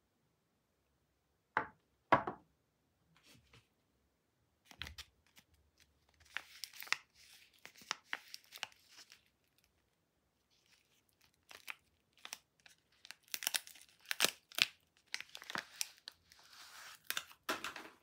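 A foil soap wrapper crinkling and tearing as a bar of soap is unwrapped by hand, in two stretches of crackling with short gaps. Two sharp knocks come before it, about two seconds in.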